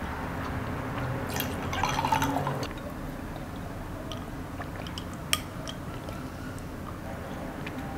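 Drink poured from a bottle into a wine glass: a splashing pour lasting about a second and a half, starting about a second in. After it come quieter sips from the glass, with a few small clicks.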